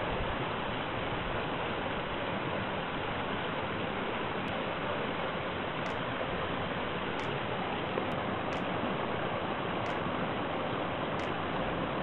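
Fast mountain stream rushing over rocks in whitewater, a steady, unbroken noise.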